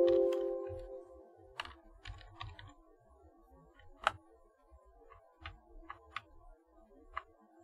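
A chime ringing out and fading over the first second, then scattered keystrokes on a computer keyboard, with one louder tap about four seconds in.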